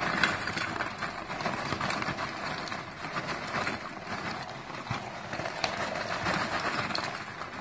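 Charcoal briquettes being poured from a paper bag into the Lotus Grill's small perforated metal charcoal holder: a continuous clatter of many small knocks with paper rustling.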